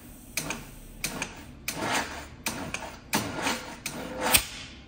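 Willys L134 flathead four-cylinder engine turned over by its starter in about seven short bumps, each a brief burst of cranking with pauses between, inching the engine toward top dead center on number one cylinder.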